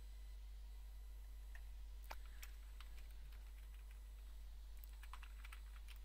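Computer keyboard typing: a few scattered clicks around two seconds in, then a quick run of keystrokes near the end, over a steady low hum.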